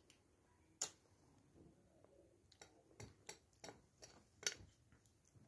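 Light metallic clinks of a steel spoon against a stainless steel plate as a toddler eats: one sharp clink about a second in, then a quick run of clinks in the second half, the loudest near the end.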